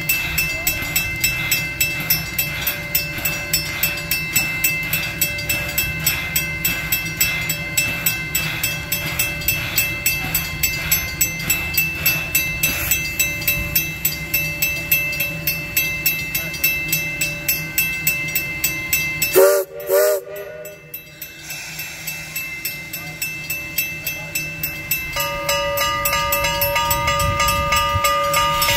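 Steam tank locomotive standing with steam up, giving an even pulsing of about three or four beats a second. About two-thirds of the way through comes a short, loud whistle blast. Near the end a steady whistle of several notes starts and holds on.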